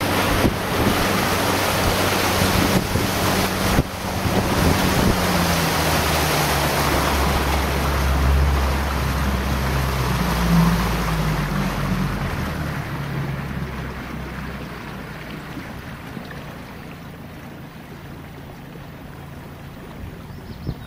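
Motorboat engine running with a strong rush of wind and water. About twelve seconds in the engine hum drops away and the rush fades as the boat slows down.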